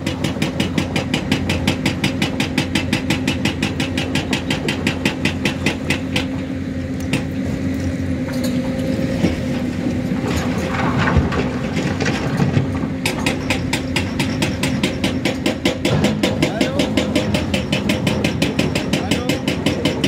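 Hyundai crawler excavator's diesel engine running with a steady hum and a rapid, even clatter while the machine digs and loads rock. The clatter drops away for several seconds in the middle, while the boom is raised over the dump truck.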